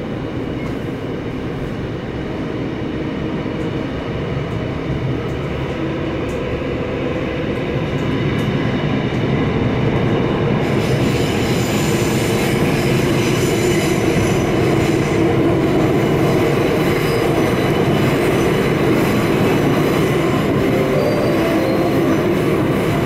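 Seoul Subway Line 9 train running between stations, heard from inside the passenger car: a steady rumble of wheels on rail. It grows louder through the first half, and a high hissing edge is added about halfway through.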